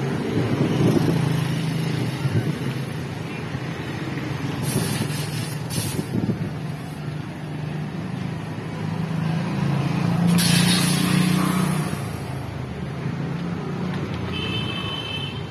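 Street traffic: motorcycle, tricycle and car engines running and passing close by, with short bursts of hiss about five and ten seconds in and a brief high tone near the end.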